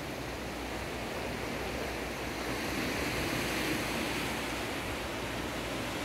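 Sea surf breaking on the shore: a steady rushing wash that swells a little in the middle.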